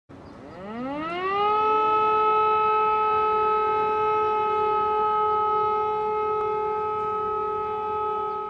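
Air-raid siren winding up in pitch over about the first second and a half, then holding one steady tone.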